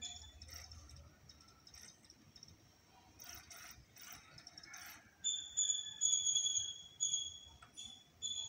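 Sony DAV-DZ120K DVD home-theatre's disc drive reading a loaded disc: faint clicks from the drive mechanism, then from about five seconds in a steady high-pitched whine.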